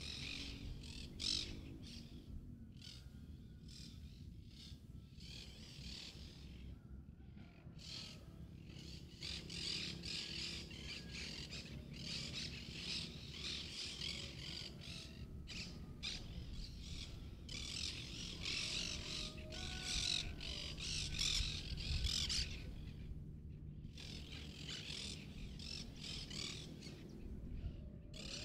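Birds chirping and calling, many overlapping calls at once, busiest in the second half.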